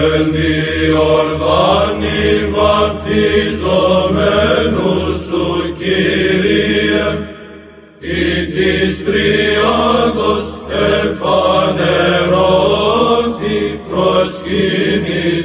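Byzantine chant sung by male voices: a melodic line wandering up and down over a steady held drone (the ison). There is a short pause in the singing about halfway through.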